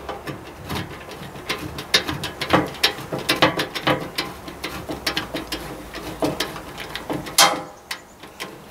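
Hand ratchet wrench clicking in short irregular strokes as a bolt is turned, with one louder knock about seven seconds in.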